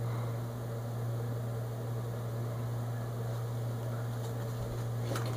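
A steady low hum with a faint even hiss underneath; nothing else stands out.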